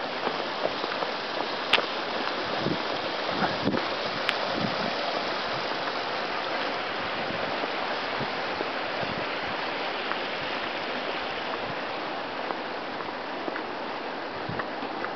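Steady rush of water, an even hiss with no break. A few sharp clicks and taps sound in the first few seconds.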